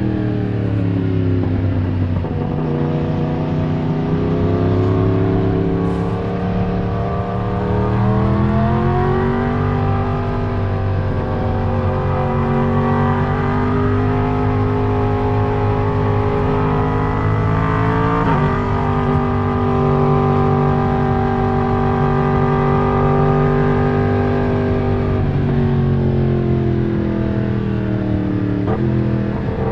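Yamaha MT-10's crossplane inline-four (CP4) engine heard from on the bike as it is ridden, the revs rising and falling. The revs drop at the start, climb again after about eight seconds, change sharply near the middle, fall off near the end, then rise quickly once more.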